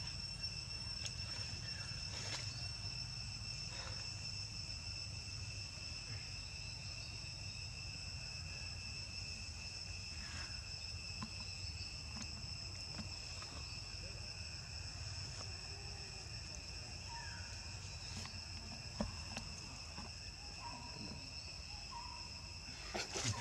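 Steady high-pitched insect drone of crickets or cicadas, holding a few even tones, over a low background rumble. A few faint clicks and rustles come and go, with a cluster of louder ones right at the end.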